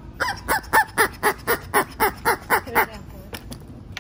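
Squeaky dog toy squeezed over and over: about four squeaks a second for nearly three seconds, then stopping.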